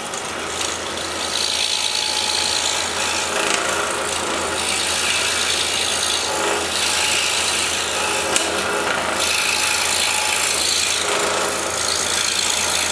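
Scroll saw running with a No. 3 reverse-tooth blade cutting interior letter cuts in 1/4-inch maple: a steady motor hum under the continuous rasp of the blade through the wood.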